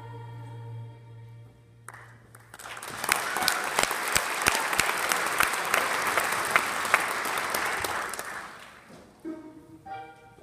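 Audience applause in a school auditorium, breaking out about two and a half seconds in once the cast's final held sung chord with accompaniment cuts off. It rises to a dense clapping, then fades out. Near the end, instrumental music starts up again.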